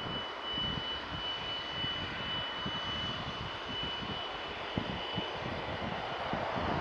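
Dassault Falcon 2000 business jet's turbofan engines running at taxi power, a steady rush with a thin high whine that fades out about five seconds in.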